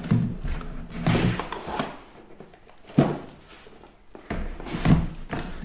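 Cardboard packaging of a laptop box being handled: scraping and rustling as a cardboard insert and flaps are pulled at, with a sharp knock about three seconds in and another thud near the end.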